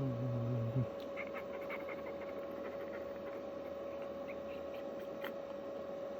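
A steady electrical hum with scattered faint clicks and ticks, and a sharper click about five seconds in. A low droning tone cuts off abruptly just under a second in.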